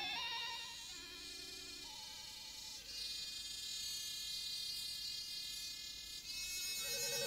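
Music for violin and electronic sounds, the electronic part made from transformed violin recordings: sustained, buzzing high tones with a fast waver that move to new pitches every second or two, over a steady hiss.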